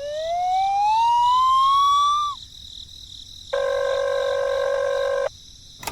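Edited-in sound effects: a whistle-like tone slides upward in pitch for about two seconds, and after a short pause a steady buzzing tone holds for nearly two seconds and cuts off sharply.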